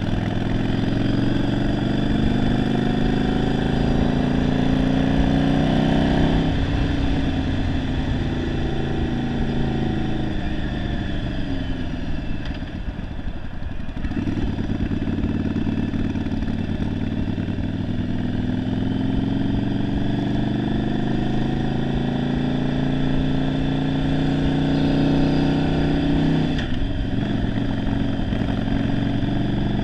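1991 Yamaha Virago 750's V-twin engine, converted to a single carburettor and running poorly, pulling the bike along under way. It rises in pitch, drops at a gear change about six seconds in, and winds down as the bike slows around the middle. It then rises again, with another gear change near the end.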